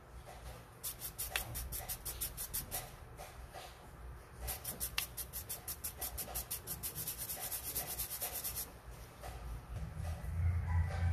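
Coin scrubbed back and forth against a brass wire brush in quick, scratchy strokes, several a second, in two runs with a short pause between. A low hum comes in near the end.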